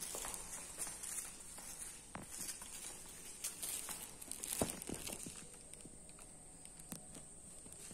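Footsteps on a tiled floor: irregular soft knocks and scuffs, with a sharper knock about four and a half seconds in.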